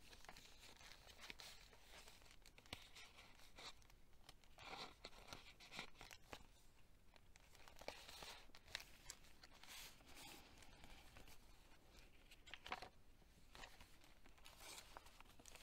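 Faint rustling and crinkling of paper as the pages and tags of a handmade junk journal are turned and handled, with scattered soft crackles and a slightly louder rustle near the end.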